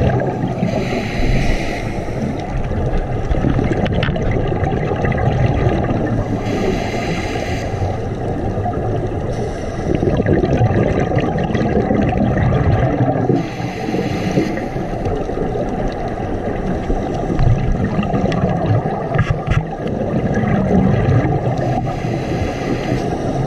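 Scuba regulator exhaust heard underwater: bursts of exhaled bubbles gurgling out every few seconds over a steady muffled rumble of water against the camera's underwater housing.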